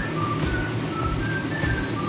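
Background music carrying a whistled melody of short, evenly spaced notes with an occasional quick upward slide, over a steady low beat.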